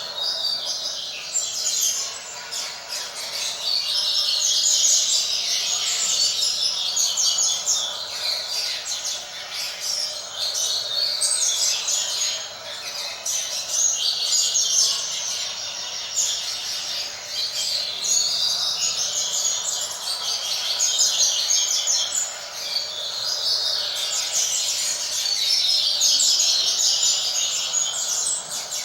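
Double-collared seedeater (coleiro) singing the 'tui tui fibra' style of song: high, rapid, fast-repeating notes in long phrases. Each phrase lasts about four to six seconds, with short breaks between them.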